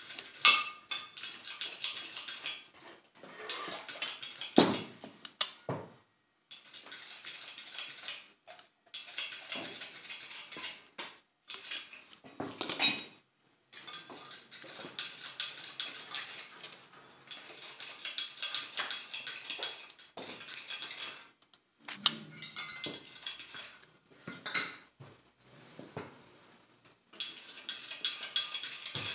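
Metal clinking and clicking as a rolling ring drive's parts are handled and adjusted with a hand tool, with a few sharper clanks among lighter rattling and scraping.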